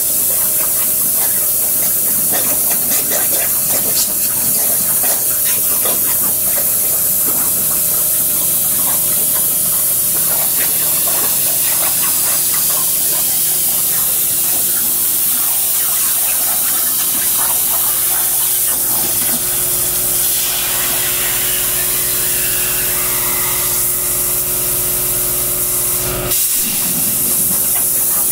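CNC plasma cutter torch cutting 3/16-inch steel plate: a loud, steady hiss of the arc and its air jet, with a brief break near the end.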